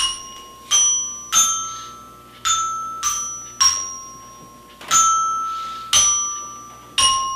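Child's toy xylophone struck with a mallet: nine single notes at an uneven, unhurried pace, each ringing and fading, with the pitch stepping up and down between neighbouring bars.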